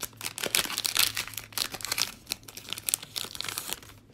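Plastic wrapper of a Panini Prizm trading-card pack being torn open and crinkled by hand, a dense crackling rustle that stops just before four seconds in.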